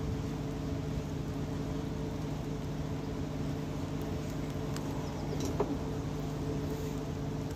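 A steady low mechanical hum with a few fixed tones in it, with faint clicks about five seconds in.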